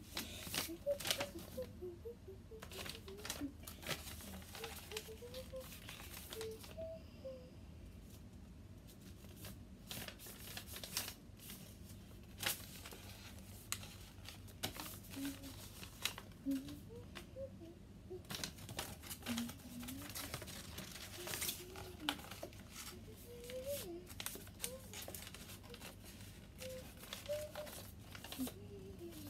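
Sheet of paper being folded and creased by hand into a paper airplane: repeated crinkles and sharp paper rustles.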